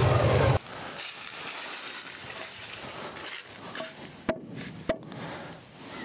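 A low motor hum cuts off abruptly just after the start, leaving quiet outdoor ambience. Then come two sharp wooden knocks about half a second apart, as of boards being handled.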